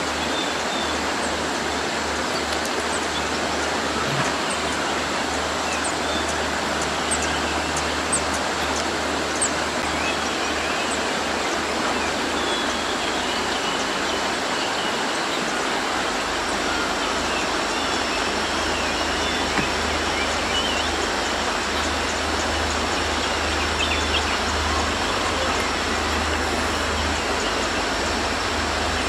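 Train approaching through a tunnel: a steady rumbling rush with a low engine throb that grows stronger from about halfway through. Faint high chirps sound over it.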